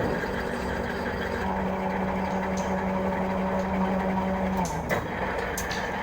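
Motor of a rebar bending machine running with a steady hum, starting with a sudden jolt and cutting off about three-quarters of the way through, followed by a short click.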